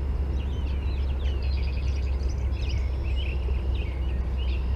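Small birds chirping in many short, quick calls over a steady low rumble.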